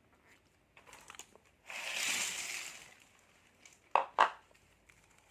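Plastic snack packet crinkling and then tearing open in one rasping rip, followed by two sharp clicks about four seconds in.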